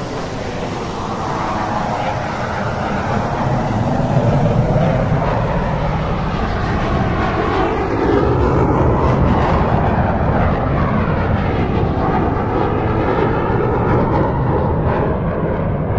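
Loud, steady aircraft engine noise with slowly sweeping tones. Its high hiss fades away in the second half.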